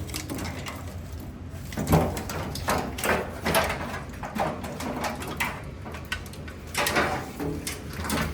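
Irregular knocks, clatter and rustling of an old vehicle wiring harness being handled and pulled loose, about a dozen separate sounds over a steady low hum.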